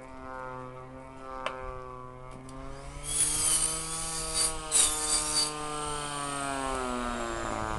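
The DLE 20 single-cylinder two-stroke petrol engine of a radio-controlled model aeroplane running in flight, a steady buzzing drone. Its pitch rises about two and a half seconds in and falls away again near the end. A bout of loud rushing noise sits over it from about three to five and a half seconds in.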